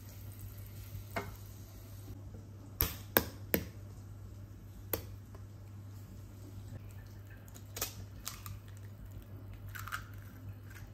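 Scattered sharp clicks and knocks of handling at the stove while eggs are cracked into a frying pan, over a steady low hum. The loudest three come in quick succession about three seconds in.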